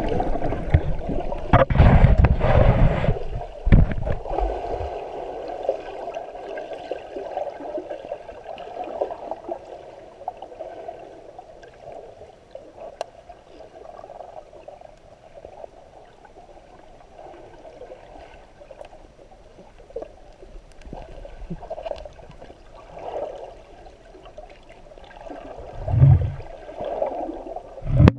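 Water heard from underwater in a swimming pool through a GoPro's sealed housing: a steady muffled rushing and gurgling. There are loud low surges of water against the housing for the first few seconds and again near the end.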